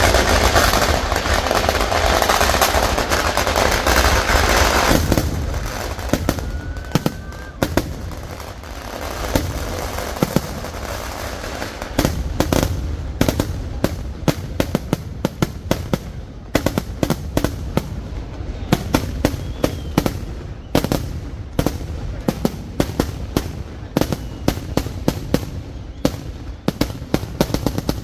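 Fireworks display: a dense, continuous roar of rapid explosions for about the first five seconds, then many sharp, irregular bangs and crackles, several a second.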